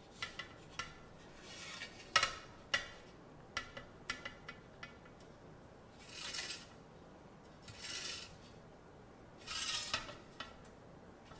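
Light metallic clinks and knocks as a RaceFace Arc 35 aluminium bike rim is handled and set on a scale, then three short scraping swooshes about a second and a half apart.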